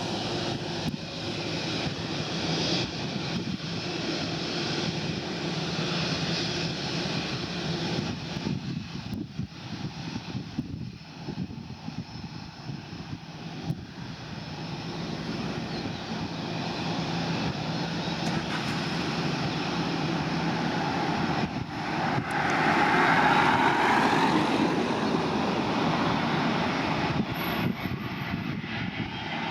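Aircraft engines running steadily, swelling to their loudest about three-quarters of the way through and then easing a little.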